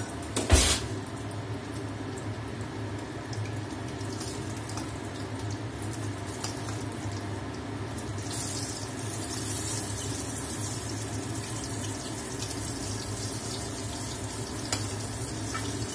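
Aubergine slices frying in hot oil in a kadai, a steady sizzle, with a sharp knock about half a second in.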